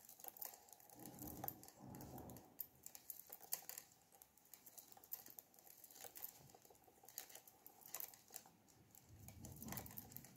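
Faint, irregular clicking and tapping of metal knitting needle tips as stitches are purled by hand.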